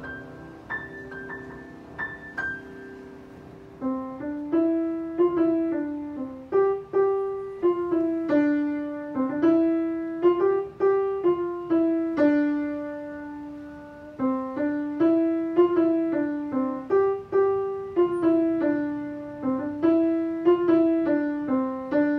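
Solo piano playing a tune. A few soft high notes sound over a held chord, then from about four seconds in a louder melody is played note by note at a steady pace.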